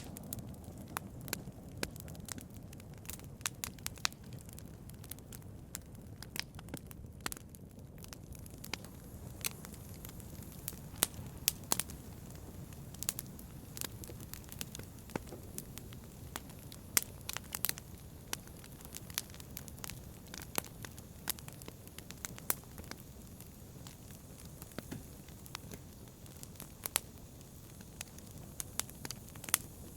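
Wood fire burning in a fireplace: a steady low rumble of flames with irregular sharp crackles and pops, a few of them much louder than the rest.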